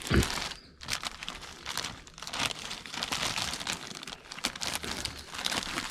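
Plastic packaging crinkling as it is handled.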